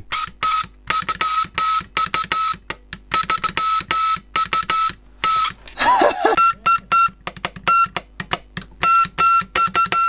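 Vintage Air Ministry Morse practice buzzer, run off a 9-volt battery, keyed by hand in short and long beeps. The buzzing note comes from an electromechanical vibrating contact. Its pitch wavers slightly, which is put down to possible oxidation on contacts left unused for many years.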